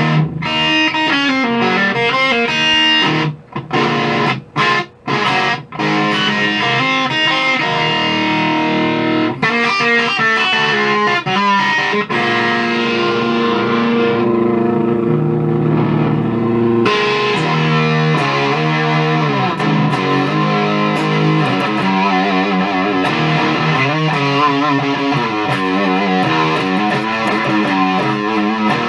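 Electric guitar played through a Maestro FZ-1A Fuzz-Tone clone pedal, recorded on a phone: fuzzy riffs and chords, with a few short choppy stabs about four seconds in and a long held chord around the middle before the riffing resumes.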